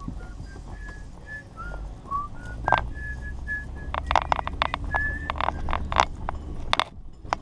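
Truck cab while driving slowly over rough grass: a low engine and road rumble, with a string of short high whistle-like squeaks. From about two and a half seconds in, sharp knocks and rattles come in quick clusters as the truck bumps along.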